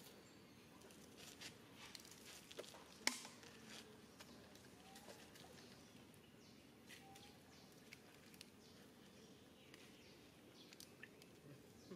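Near silence: quiet outdoor background with scattered soft clicks and ticks, one sharper click about three seconds in, and a few faint short chirps.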